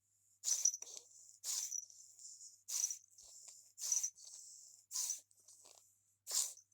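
A cat sneezing six times in a row, one sharp sneeze about every second.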